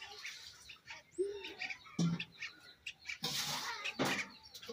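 Birds chirping in short, high calls, one of them a quick upward sweep. A low knock comes about two seconds in, and a burst of noise lasting about a second comes near the end.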